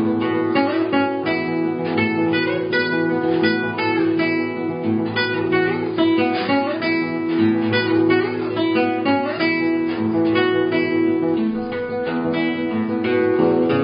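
Background music of plucked guitar notes over steady sustained tones.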